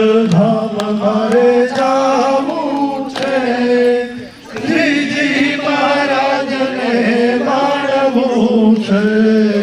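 Hindu mantra chanting: a sung chant on long held notes, with a short pause for breath about four seconds in.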